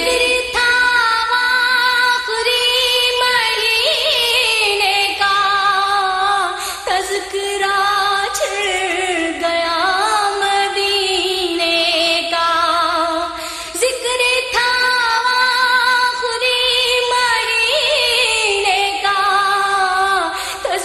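A voice singing an Urdu devotional salam (naat) melody in long, wavering held notes, with no clear words.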